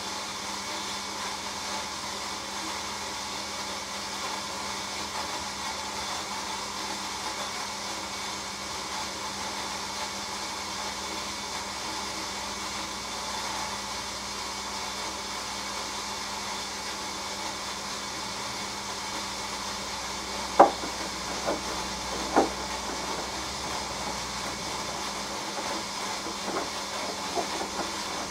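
Hoover AXI washing machine at the start of its main wash on the delicate 40 °C programme: a steady hiss of water running into the machine. A few sharp knocks come about twenty seconds in, and a couple of fainter ones near the end.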